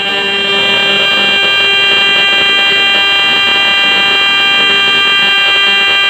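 12-volt electric disc horn sounding loudly with one steady, unbroken buzzing tone. It is set off by a candle flame heating the homemade heat-operated switch, so this is the alarm tripping.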